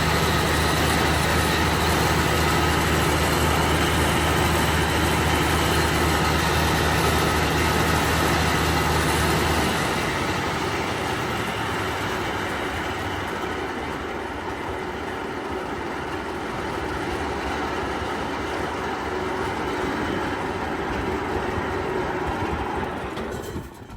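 Engine-driven corn sheller powered by a 30 hp Dong Feng diesel engine, running steadily with a loud mechanical clatter. A steady low engine hum is strong for about the first ten seconds, then fades. The sound drops away sharply just before the end.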